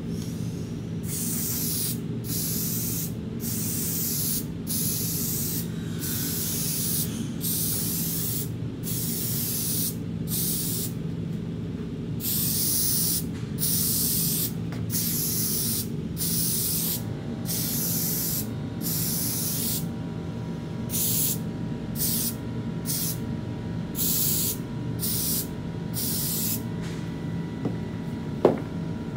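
Spray contact adhesive hissing from a hose-fed spray gun on a pressurised canister, in a long series of short bursts, each about half a second to a second and a half, with brief gaps, as a coat of adhesive is laid on rubber roof membrane. A steady low hum runs underneath, and a sharp click comes near the end.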